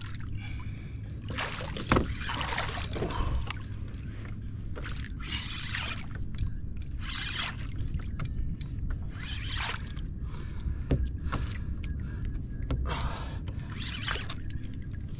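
Water sloshing and splashing against a fishing kayak's hull in irregular bursts every second or two, over a low steady rumble, with a sharp knock about two seconds in and another near eleven seconds.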